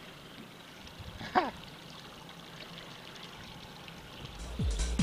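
Water lapping and trickling against the boat, with one short sound that falls in pitch about a second and a half in. Electronic music with a steady beat fades in near the end.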